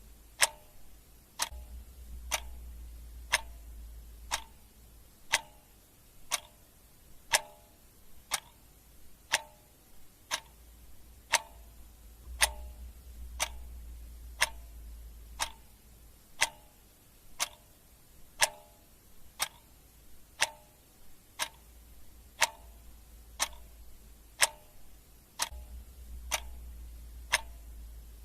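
Clock ticking steadily, one sharp tick about every second, with a faint low rumble underneath that swells and fades.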